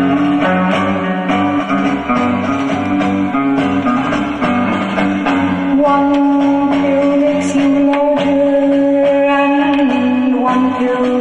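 A guitar-led rock or blues song playing from a vinyl record on a turntable.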